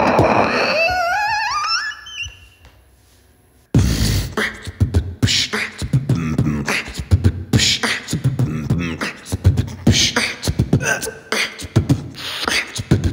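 Beatboxer's voice through a microphone, every sound made by mouth: a wavering, rising vocal glide fades out about two seconds in. After a short pause, a fast drum-like beatbox rhythm of clicks and vocal hits starts abruptly.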